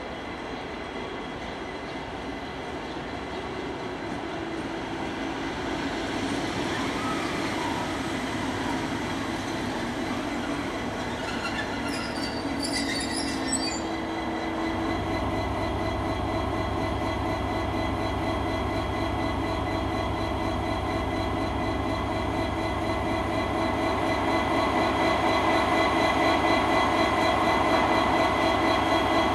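M62M diesel locomotive's engine running during shunting. Its sound builds up: about halfway through a deeper steady drone sets in, and it gets louder again near the end. A brief high metallic squeal comes about twelve seconds in.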